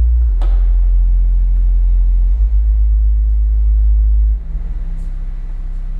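Deep, steady vehicle rumble with a few steady low tones over it, and a sharp click about half a second in; the rumble drops in level a little after four seconds.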